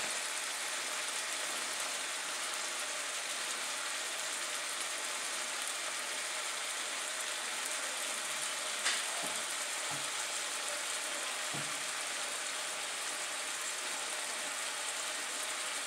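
Steady sizzling hiss of ground venison and sausage frying in a pan, with a sharp click about halfway through and a few faint knocks of stirring just after it.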